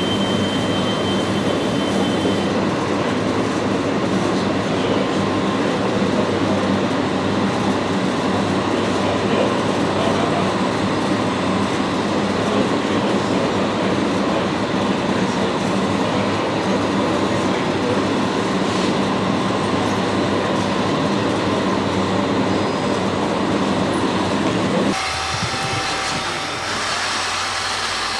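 Scale RC construction machines running: a steady dense mechanical whirring and grinding over a low hum. It drops off abruptly about 25 seconds in, leaving a quieter hum with a thin steady tone.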